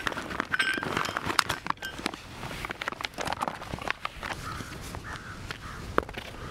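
Dry leaves and grass rustling and crackling underfoot as someone moves about on foot, with scattered light clicks at an irregular pace.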